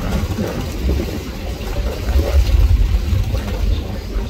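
Loud, uneven low rumble aboard a Staten Island ferry under way: the ferry's engines together with wind buffeting the microphone.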